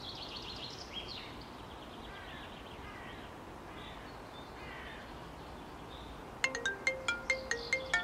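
Faint bird chirps over a steady background hiss, then about six and a half seconds in a mobile phone starts ringing: a ringtone melody of short, quickly repeated notes.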